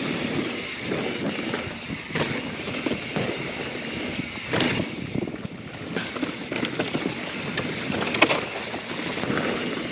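YT Jeffsy mountain bike being ridden on a dirt trail: steady rolling noise with wind on the microphone and scattered rattles and clicks from the bike.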